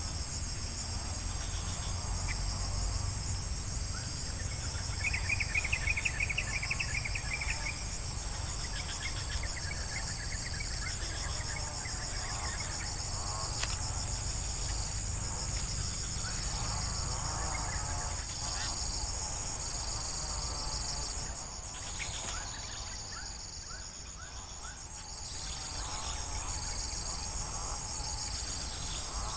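Insects, crickets or cicadas, keep up a steady high-pitched whine over a low background rumble. Short bird trills come in a few seconds in, and the background goes briefly quieter about three-quarters of the way through.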